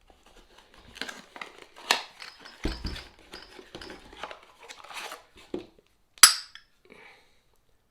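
Metal pieces of a seal driver set being handled, clinking and rattling against each other amid packaging rustle, with one sharp click about six seconds in.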